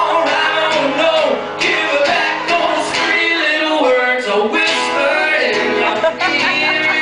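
Live band playing a song, with singing over the instruments.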